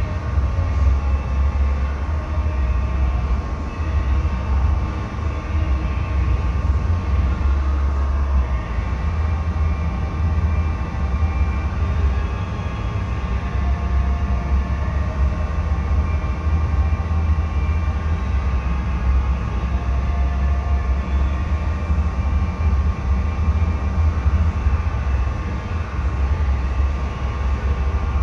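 Steady low rumble of a paint spray booth's ventilation fans, with a faint steady hum above it, heard muffled through the booth's glass door.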